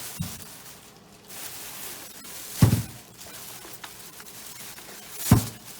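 Chicken bones being dropped into a pot of boiling water: two heavy splashing thuds, about two and a half seconds apart.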